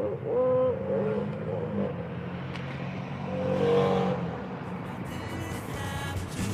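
Steady low rumble of road traffic, with two short pitched sounds, one about half a second in and one near four seconds in.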